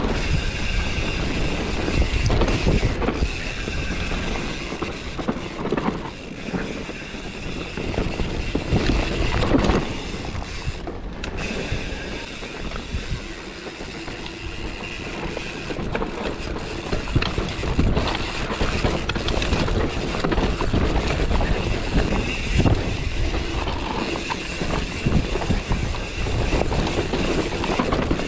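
Enduro mountain bike riding down a rough dirt forest trail, heard from an action camera on the rider: wind rushing over the microphone under the tyre noise, with constant rattles and knocks from the bike over the bumps.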